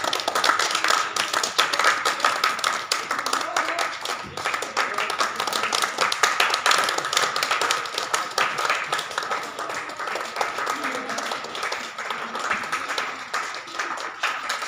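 A group of people applauding in welcome, many hands clapping quickly and unevenly without a break, with voices mixed in.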